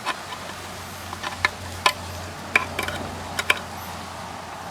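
A scattered run of light, sharp clicks and taps from small metal parts being handled as the transmission filter and its wire clip are fitted, over a low steady hum.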